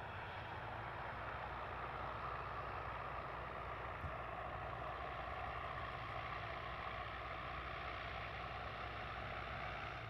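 Aircraft engine noise from an aircraft moving on or near the airfield, a steady sound with a faint whine in it, dropping away near the end.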